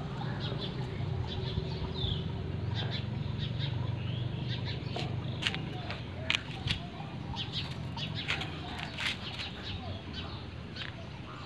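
Birds chirping in short, scattered calls, over a low steady hum that fades out about halfway through.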